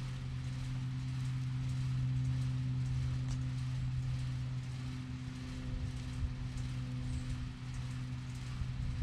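A steady low hum from a running motor or engine, a little louder a couple of seconds in and easing off later, over a light outdoor hiss.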